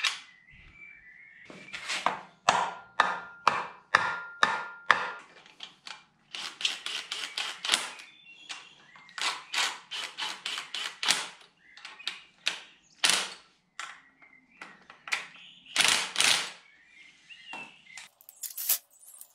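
Cordless impact driver hammering on flywheel bolts in a run of short, sharp bursts with brief pauses between them.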